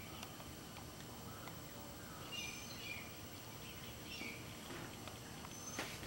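A few short, faint high-pitched bird chirps over a steady outdoor hiss, with one sharp knock just before the end.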